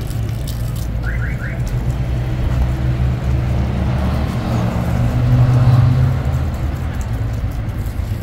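A vehicle engine running steadily, swelling louder around five seconds in. Three quick rising high chirps sound about a second in.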